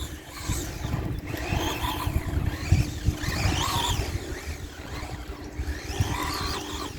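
Wltoys 144001 RC buggy's brushed electric motor whining as it speeds up and slows down several times, the pitch rising and falling, loudest about three and a half seconds in. Wind rumbles on the microphone underneath.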